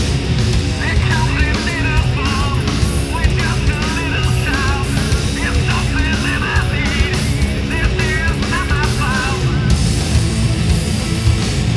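Live rock band playing loud: distorted electric guitars, bass and drums. Over it the singer's voice wavers through a small hand-held megaphone, starting about a second in and dropping out near the end.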